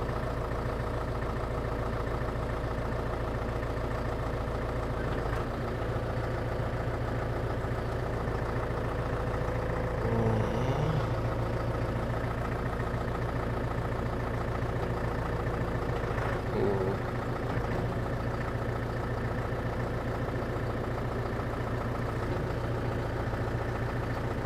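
New Holland tractor's diesel engine idling steadily, freshly started after a repair. Two brief louder sounds come over it, about ten and sixteen seconds in.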